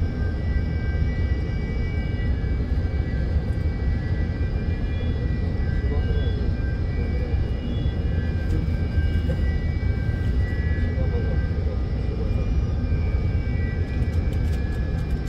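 Steady low drone of a ship's running machinery, with a few faint high whining tones over it.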